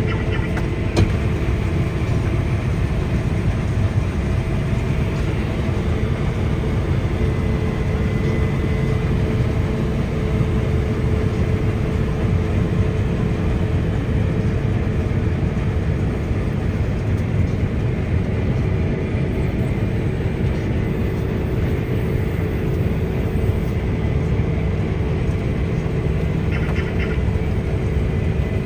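Case IH Axial-Flow 9250 combine harvester running steadily while harvesting wheat: a constant heavy rumble with a faint steady whine over it.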